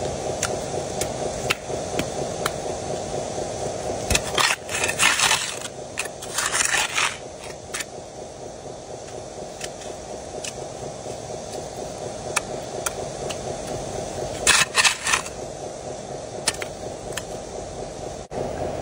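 Remote-control model excavator's electric motor humming steadily, louder in the first few seconds, while dirt and stones scrape and clatter from its bucket into the dump truck's bed in two loud bursts, about four seconds in and again near fifteen seconds.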